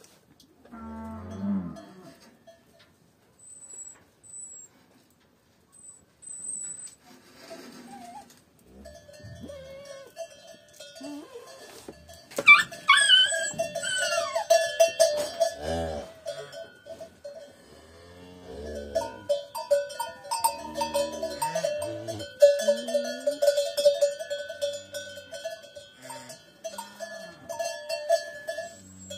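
A bell on a calf's collar jangling over and over as the calves move, ringing at a few fixed pitches. Short low calf calls come in between.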